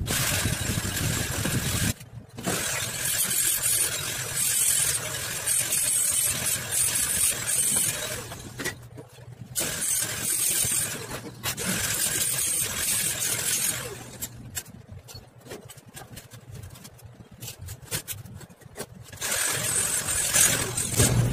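Harsh, hissing metalworking noise on a stainless steel cart frame, coming in spells of a few seconds with short breaks. A quieter stretch of scattered clicks falls in the middle, and the noise starts up again near the end.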